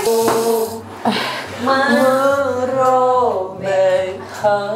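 Singing in long, drawn-out notes, one long phrase sliding down in pitch a little past the middle, over a steady musical backing.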